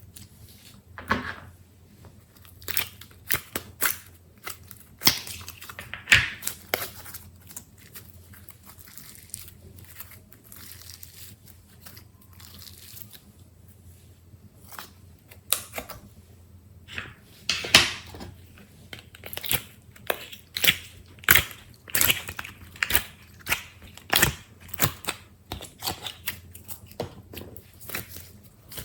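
Slime being squeezed, pressed and kneaded by hand close to the microphone: irregular sticky clicks and crackling air-pocket pops, sparser in the middle and coming thick and fast near the end.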